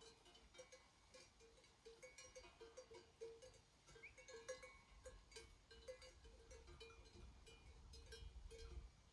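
Faint, irregular clinking of many bells hung on a grazing flock of sheep, with a low rumble in the second half.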